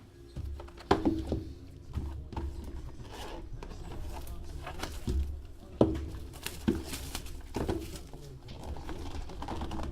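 Trading cards being handled on a table: irregular sharp taps and clicks as cards are flipped, set down and slid, over low thumps of handling.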